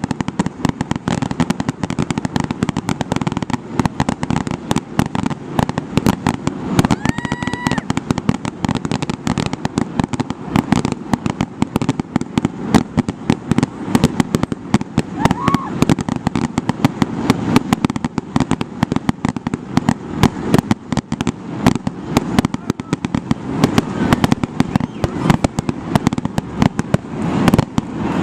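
Fireworks display: a rapid, continuous string of bangs and crackles from aerial shells bursting. Brief rising whistles sound about 7 seconds in and again about 15 seconds in.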